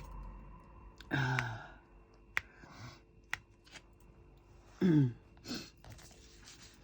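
A woman's voice makes two short sounds that fall in pitch, about a second in and, louder, near five seconds in. A few sharp clicks come between them.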